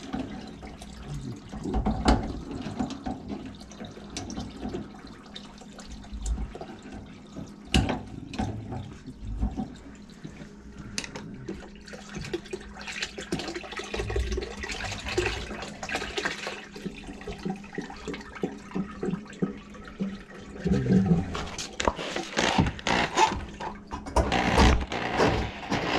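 Backed-up water from a grease-clogged kitchen sink drain splashing and trickling out of the opened drain pipe into a plastic bucket, with scattered knocks of parts being handled. The knocking and clatter get denser and louder over the last few seconds.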